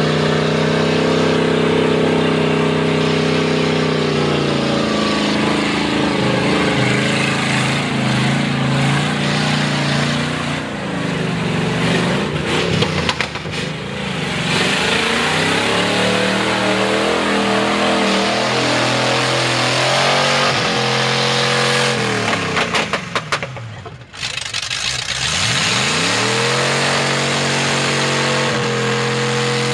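Chevy square-body mud truck's V8 with open headers running hard in the mud, revving up and down as the tyres churn. Late on the revs drop away sharply, then climb back to steady running.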